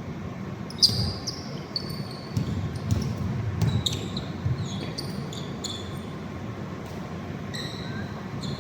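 Basketball game play on an indoor court: the ball bouncing with sharp knocks, and short high squeaks of sneakers on the floor several times, over the hall's low rumble.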